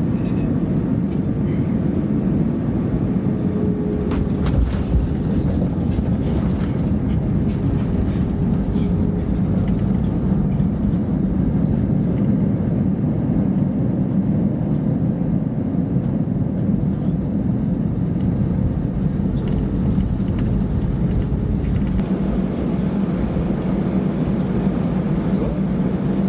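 Steady low rumble in the cabin of an Airbus A319-111 slowing on the runway after landing and turning off onto the taxiway: its CFM56 engines running and the landing gear rolling over the pavement.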